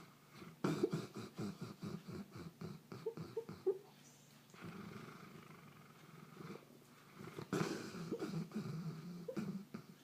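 Sleeping Goldendoodle barking in its sleep: two runs of quick, muffled woofs and yips, one starting just after the start and the other after about seven and a half seconds, with quieter snoring breaths between.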